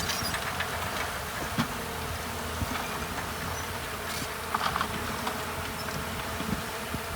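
Heavy-equipment diesel engine running steadily with a buzzing drone, and a few short clicks about a second and a half in and again near five seconds.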